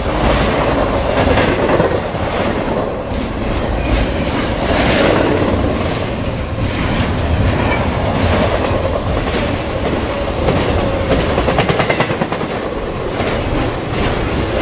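Loaded double-stack container well cars of a freight train rolling past: a steady loud rumble, with repeated clicks of the wheels passing over rail joints.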